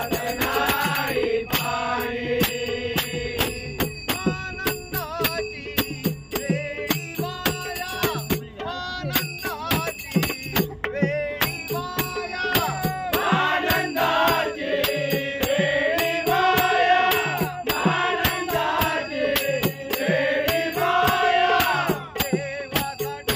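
Marathi devotional bhajan: a man singing a chant-like melody in praise of Hari over a steady beat of jingling percussion. The voice rises and falls most clearly in the second half.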